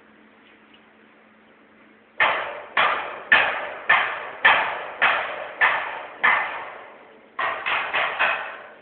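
Hammer blows on a steel roof truss, each ringing briefly. Starting about two seconds in, eight blows come at about two a second, then after a short pause four quicker ones.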